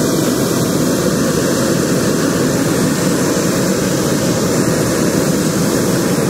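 Hot air balloon's propane burner firing in one long blast: a loud, steady roar.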